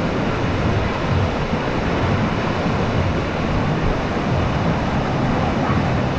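Sheet-wave surf machine running: a steady, loud rush of pumped water flowing up the padded slope, with a deep rumble underneath and no breaks.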